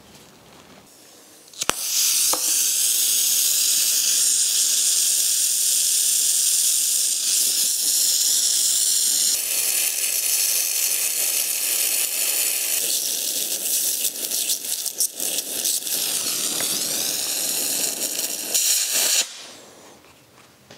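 Gas blowtorch flame hissing steadily, starting after a click about two seconds in and shutting off abruptly near the end. It is heating a rusted, damaged exhaust-manifold stud red-hot to free it.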